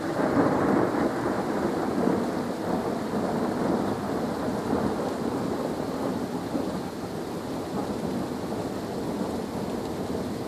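A thunderclap breaks suddenly and rolls on for several seconds, slowly fading, over steady rain.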